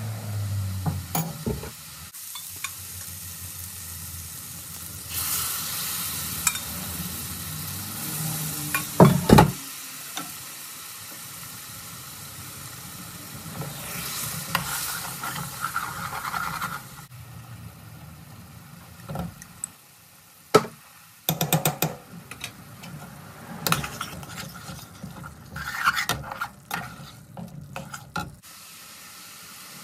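Curry frying and sizzling in a pan while it is stirred, with a ladle knocking and scraping against the pan several times. The sizzle is strongest in the first half and eases later on.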